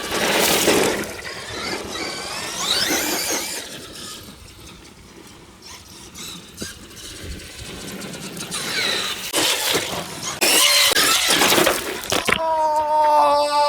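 Electric motor of a Traxxas E-Revo 2.0 RC monster truck whining in rising and falling sweeps as the truck speeds up and slows, mixed with rough, harsh bursts of noise. It goes quieter for a few seconds in the middle, and near the end a steady whine holds at one pitch, sinking slightly.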